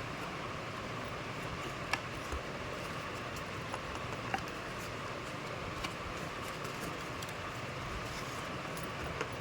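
Steady background hiss with a few brief, faint clicks and taps scattered through it, like small handling noises.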